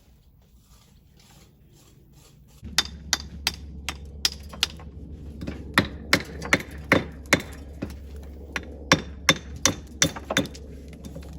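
About twenty sharp hammer strikes with a metallic ring, irregularly spaced. They start about three seconds in, together with a steady low machine hum that runs beneath them.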